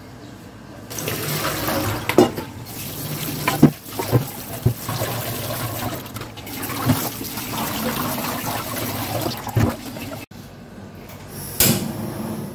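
Water pouring and splashing into a stainless steel kitchen sink as cucumber strips are drained and rinsed, with several knocks of the bowl and colander against the sink. The water stops abruptly about ten seconds in, and a single sharp click follows near the end.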